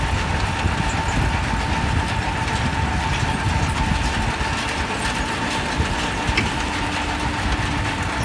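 Diesel tractor engine idling steadily under a continuous low rumble, with a steady high whine from nearby machinery.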